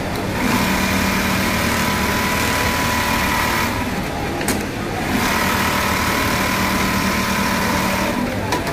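Automatic pocket-setting sewing machine running with a steady mechanical hum in two runs of about three seconds each. Between them is a short lull with a single sharp click.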